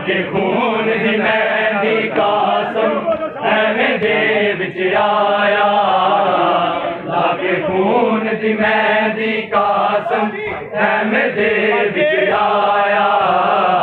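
A crowd of men chanting a noha, a Shia mourning lament, in unison behind a lead voice on a microphone. Their voices rise and fall in sung phrases, and hand strikes on bare chests (matam) are heard now and then.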